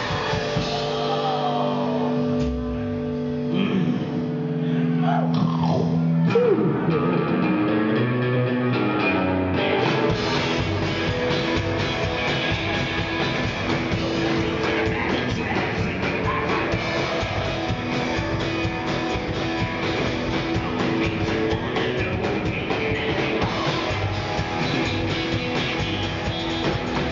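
Live rockabilly band playing with singing. Hollow-body electric guitar with held notes that bend in pitch for the first few seconds, then from about ten seconds in the full band plays with drums and upright bass.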